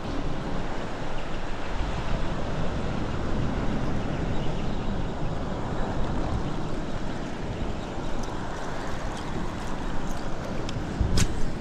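Wind on the microphone over the steady wash of the sea, with a few sharp clicks near the end, the loudest about eleven seconds in.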